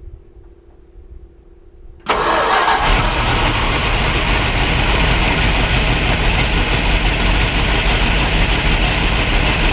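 Plymouth 340 small-block V8 starting about two seconds in, with a sudden loud catch, then running steadily with a deep rumble.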